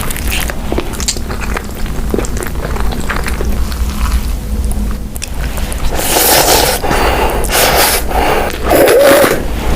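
Close-miked eating: a person biting and chewing food with wet, squishing mouth sounds, turning into a run of louder bites and chews in the second half.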